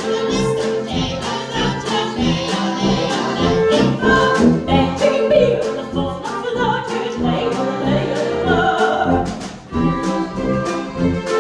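Live music: singing voices over instrumental accompaniment with a steady beat, with a short break near the end.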